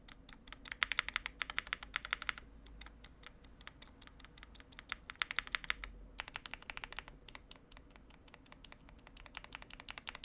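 Fast typing on a Mammoth75 mechanical keyboard with Krytox-lubed Prevail Epsilon linear switches, a PC plate and GMK keycaps. The keystrokes come in quick runs with short pauses between them.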